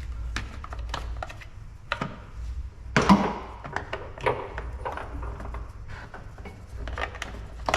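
Clicks and knocks of plastic engine-bay covers being handled and pushed into place, with the loudest knock about three seconds in, over a steady low hum.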